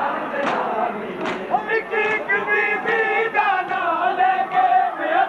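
Large crowd of men chanting a noha, a Shia mourning lament, together, with long drawn-out notes. In the first second or so, sharp slaps land in time, about one every three-quarters of a second, from the mourners beating their chests (matam).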